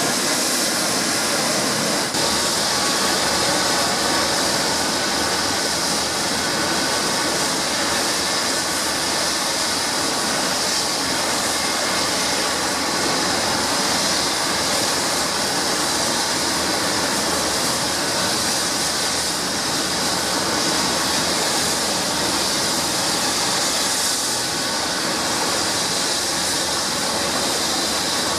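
Eurocopter EC-135 helicopter's twin turbines and rotor running steadily: a loud even rush with a high turbine whine over it.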